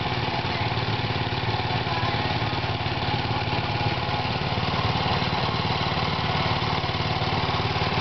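Small gasoline engine of a walk-behind hand tractor cultivator running steadily as its rotary tines till the soil.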